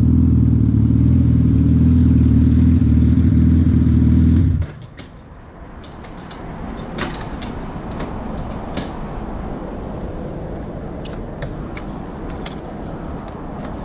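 2020 Suzuki Hayabusa's 1340 cc inline-four idling steadily, then shut off about four and a half seconds in; afterwards only a few light clicks over a low background hiss.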